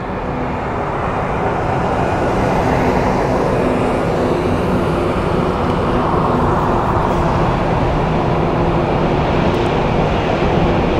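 Jet airliner engines running at an airfield: a rumble that grows over the first two seconds, then holds steady with a faint low hum in it.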